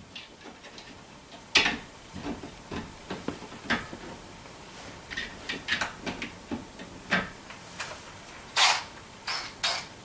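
Hands working at a wall electrical box: scattered light clicks, taps and a few short scrapes as screws and fittings are handled and set in place, with the loudest scrape near the end.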